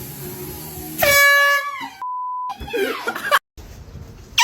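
A handheld air horn blasts once, loud, about a second in, for about half a second. A flat censor bleep follows, then a person's voice crying out.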